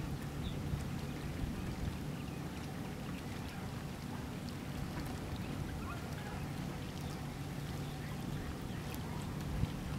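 Steady low rumble, with a few faint short chirps from osprey chicks, one near the start and a rising one about six seconds in.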